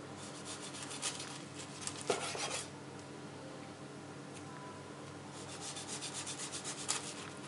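Kitchen knife sawing through a nori-wrapped sushi roll on a wooden cutting board: a run of quick rasping strokes, a knock about two seconds in, then another run of strokes in the second half.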